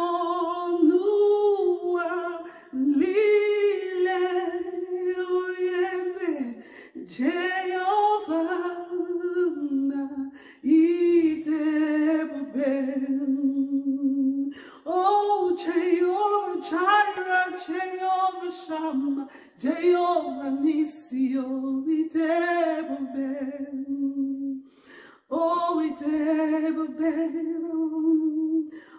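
A woman singing a worship song unaccompanied into a handheld microphone, in long held phrases broken by short pauses for breath.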